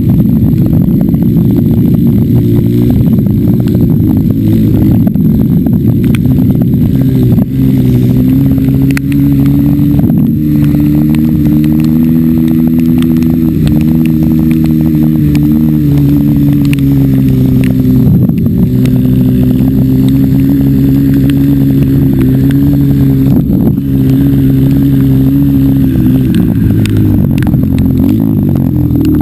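Engine of an off-road vehicle running loud and steady as it rides across sand, its note dipping in pitch and climbing back a few times with throttle changes.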